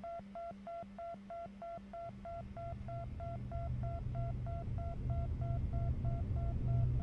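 Electronic sci-fi interface tone beeping in a rapid, even pulse of about three beeps a second, signalling a virtual-reality neural link starting up. From about two seconds in, a low rumbling drone swells up beneath it and grows steadily louder while the beeps fade.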